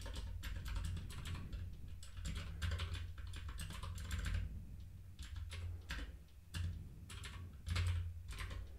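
Typing on a computer keyboard: quick, irregular keystroke clicks in short runs with brief pauses.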